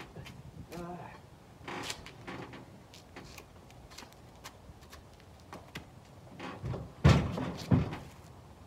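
Clunks and knocks of a sport ATV being pushed by hand up into a pickup truck bed, ending in two heavy thumps less than a second apart near the end as it settles into the bed.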